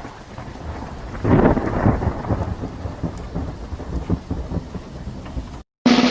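Thunder sound effect: steady rain hiss, then a loud rumble of thunder about a second in that rolls on and dies away, cut off abruptly near the end.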